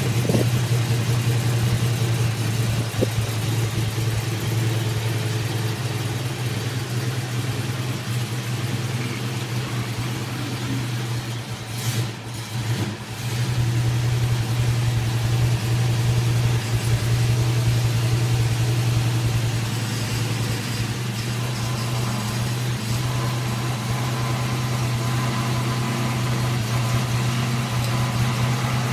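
Jensen Interceptor Mk II's Chrysler big-block V8 idling steadily, its exhaust steaming as it warms up from cold. About twelve seconds in the note briefly drops and wavers, then it runs on a little louder.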